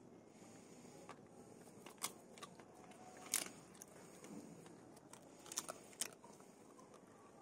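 A dog chewing and tearing a piece of roti flatbread, a handful of short sharp clicks of teeth and jaws, the loudest about halfway through.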